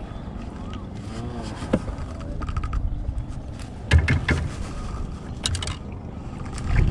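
Handling noise on a small aluminium fishing boat as the fishing line is hauled in by hand, over a steady low rumble: scattered clicks, with louder knocks about four seconds in and again a second and a half later.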